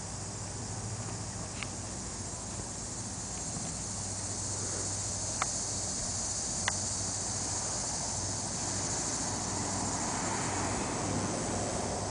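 Steady high-pitched drone of insects, with three short sharp clicks about one and a half, five and a half and six and a half seconds in.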